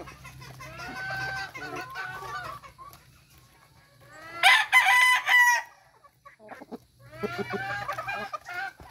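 Chickens clucking in short, arching calls, with one loud rooster crow lasting a little over a second about halfway through.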